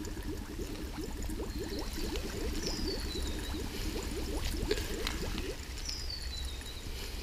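Water bubbling and gurgling as it heats toward a rolling boil in stainless steel bottles set on a campfire, with the odd crackle from the fire. A high falling whistle sounds twice.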